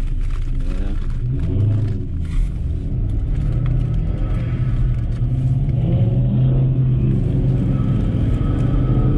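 Car engine running with a steady low rumble; its pitch steps up slightly a couple of seconds in and then holds.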